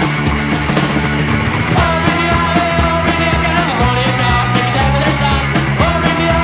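Punk rock song playing at full band level, with distorted electric guitar and bass. New held high notes come in about two seconds in and again near the end.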